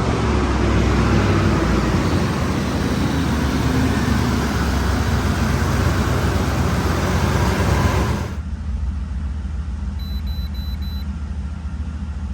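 2005 Ford Explorer's 4.6 L V8 idling just after being started, its engine speed easing down over the first few seconds. This is a test run after an EGR valve replacement. A rushing noise over the engine stops abruptly about eight seconds in, leaving a steady low idle.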